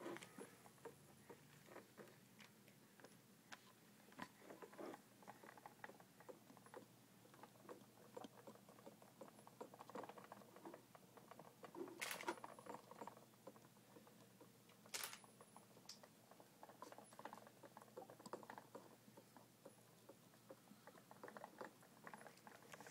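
Mostly near silence with faint scattered taps and clicks from plastic exersaucer toys being handled, and two sharper clicks around the middle.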